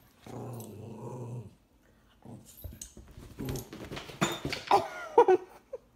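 A pet growling low for about a second. After a pause come a few knocks and then several short, wavering, higher-pitched cries near the end.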